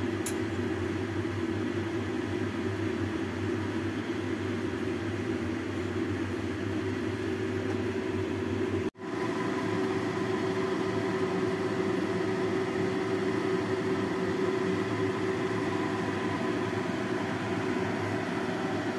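Steady hum of a running fan motor, with a constant whir and a few fixed tones; it drops out abruptly for an instant about nine seconds in.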